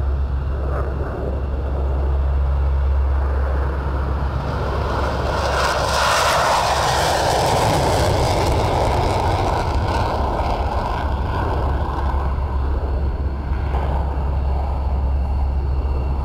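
Military aircraft engines on takeoff: a steady deep rumble, with a rushing engine noise that swells to its loudest about six seconds in as the aircraft passes, then eases off.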